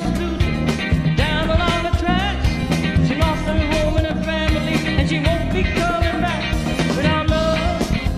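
A person sings along to a rock karaoke backing track with a steady drum beat.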